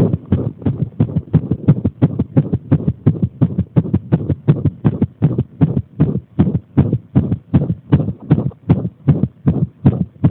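Human heartbeat picked up through a chest microphone: a fast run of low thuds, about four a second. The uploader presents it as an arrhythmia brought on by pressing on the chest.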